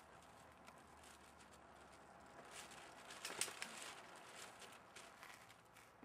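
Mostly near silence, with a short flurry of faint crunching clicks about halfway through from steps on a gravel path.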